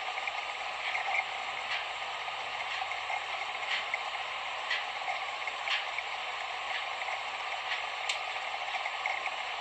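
Faint, even ticking, about one tick a second, over a steady hiss.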